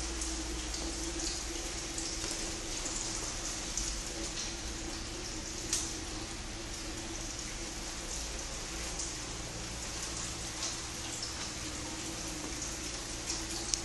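Steady indoor background noise: an even hiss over a low hum, with a few faint clicks.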